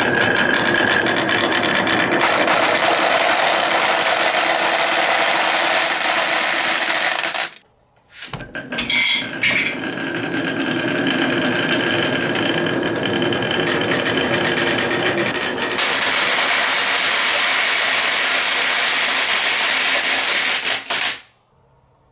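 A battery-powered toy dump truck's small electric motor and gears running steadily, with rattling. It stops abruptly about a third of the way in, starts again after a short pause, and cuts off near the end.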